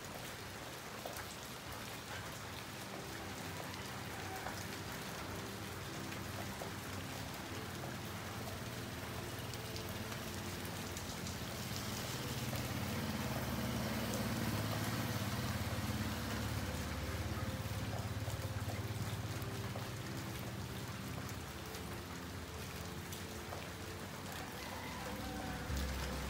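Steady rain falling on a street and its roofs. About halfway through, a low rumble swells for several seconds and then fades.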